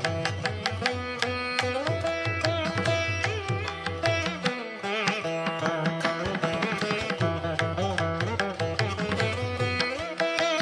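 Indian classical-style instrumental background music: quick plucked-string notes over a steady drone. The low end drops out briefly about halfway through.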